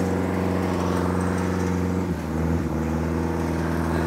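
A motor vehicle's engine running steadily, its pitch shifting down a little about halfway through.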